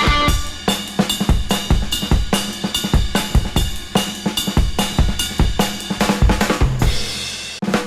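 Background music with a steady drum-kit beat: kick, snare, cymbals and hi-hat.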